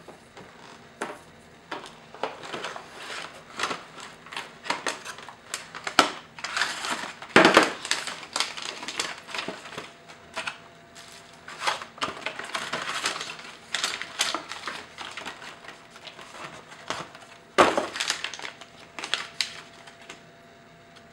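Handling of tablet packaging: a white cardboard box and its tray scraping and knocking, with plastic wrapping crinkling, in many short irregular noises. The loudest knocks come about seven seconds in and again near seventeen seconds, and the handling stops about a second before the end.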